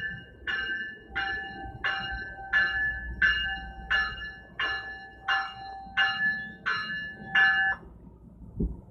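Locomotive bell ringing at an even pace, about three strikes every two seconds, over a low rumble. It stops about three-quarters of the way through, and a few low thumps follow near the end.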